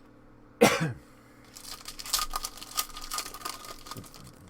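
Plastic wrapping on a sealed box of trading cards being torn open: one loud rip about half a second in, then a run of crinkling and crackling as the wrapper is pulled away.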